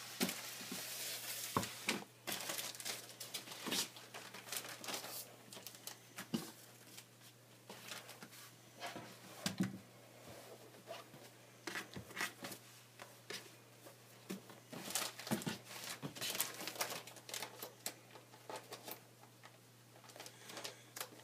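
Clear plastic bag and paper rustling and crinkling as cut fabric appliqué pieces are handled and moved about on a cutting mat, in scattered short bursts with light taps.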